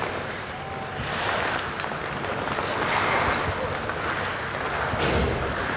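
Steady hiss of ice hockey skates cutting and scraping the ice, with the open echo of a nearly empty rink. A sharp knock near the end.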